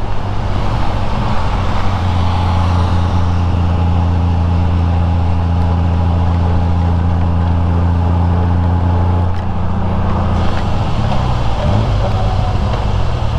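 Honda Gold Wing GL1500's flat-six engine running steadily under wind and road noise as the bike comes off the highway onto an exit. The engine note changes about nine seconds in.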